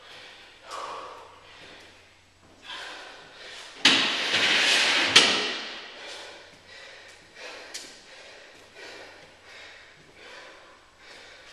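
A man breathing hard while resting between sets, with a louder rushing noise about four seconds in that ends in a sharp knock.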